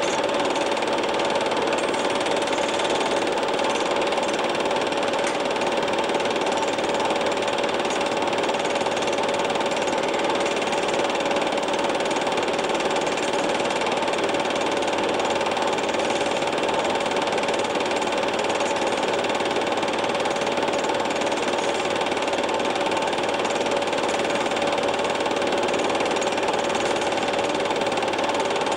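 Film projector running steadily, with a constant hum.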